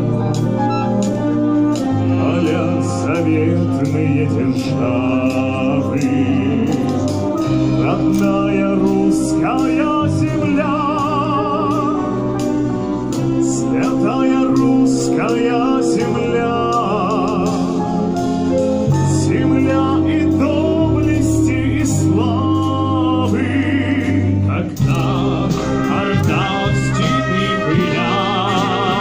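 Massed brass band playing sustained chords with a male soloist singing over it, his long held notes sung with a wide vibrato.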